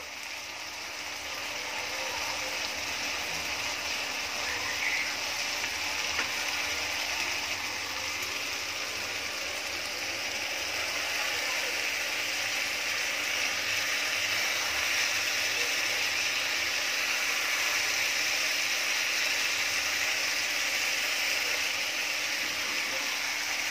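Chicken masala sizzling in a non-stick frying pan while a wooden spatula stirs it, a steady frying hiss with scraping, over a faint steady hum.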